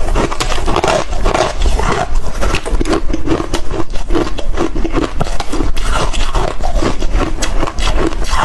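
Close-up crunching and chewing of hard chunks of freezer frost, a rapid run of many crackling crunches.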